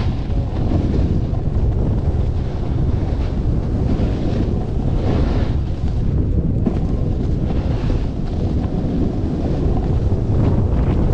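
Wind buffeting the microphone during a fast ride down a groomed snowy slope, a steady low rumble, with swells of hiss as the runner scrapes across packed snow.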